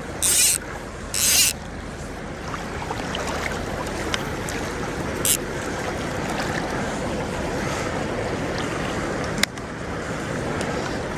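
Steady rush of river current, with two short loud hissing noises about a second apart near the start.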